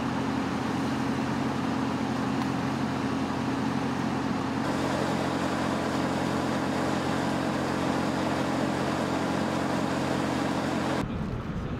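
Engine-driven field equipment running steadily, a constant low hum with a few fixed tones, which cuts off abruptly about eleven seconds in.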